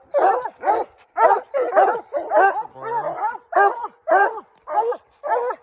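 A pack of hounds baying at a tree in a rapid run of short, ringing chop barks, about two a second and overlapping: the treed bark, the sign that the hounds have a bear up the tree.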